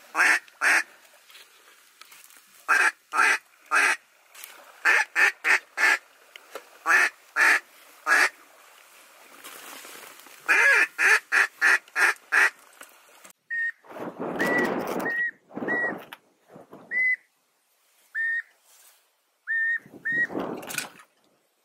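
A long run of loud, short duck quacks in quick groups of three to six. After a sudden change about 13 seconds in, geese honk in high, clear notes with upturned ends, some with a rough rushing noise under them.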